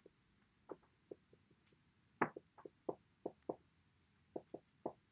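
Marker writing on a whiteboard: a string of short, irregular pen strokes and taps, the loudest about two seconds in.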